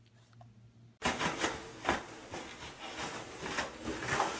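A quiet first second, then about a second in a dense, irregular crinkling and rustling of toilet paper begins and stays loud as a cat paws and tears at a shredded roll.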